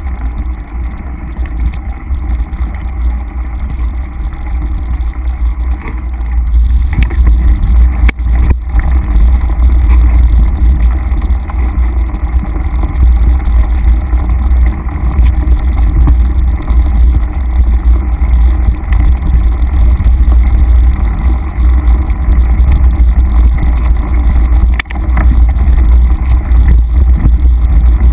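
Heavy wind buffeting and ride rumble on an action camera's microphone as a mountain bike rolls fast along dirt singletrack. It gets louder about six seconds in, with a few sharp knocks from the bike over the trail.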